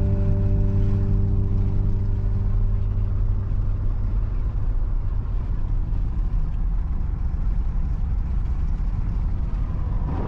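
A car driving at steady speed: an even, low rumble of road and wind noise with no changes in engine pitch.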